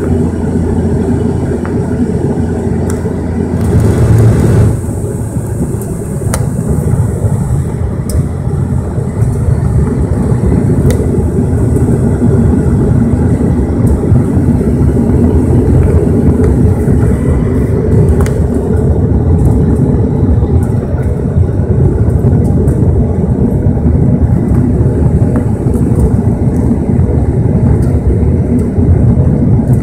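Cabin noise of a Bombardier Q400 turboprop airliner on approach: the steady low drone of its Pratt & Whitney PW150A engines and six-bladed propellers, mixed with a rumble of rushing air. About four seconds in, a brief louder rush of air cuts off suddenly, and the rumble then grows louder and stays so.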